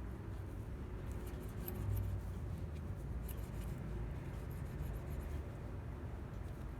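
Faint small clicks and scrapes of hand tools on the valve gear of a Honda Cub engine while the valve clearance is checked and set, over a low steady rumble.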